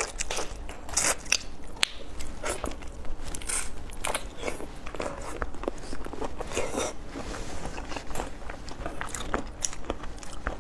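Close-up eating sounds of a person biting and chewing whole shrimp, with the crackle of the shells being cracked and peeled by hand: many short, irregular crunchy clicks.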